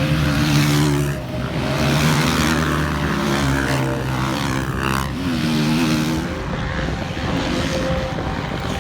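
Motocross bikes racing, their engines revving up and down repeatedly as they accelerate and shift.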